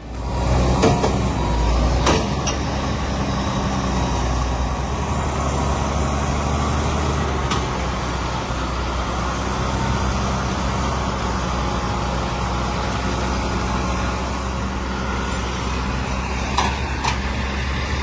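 A large vehicle engine running at a steady speed, with a few sharp clicks or knocks over it.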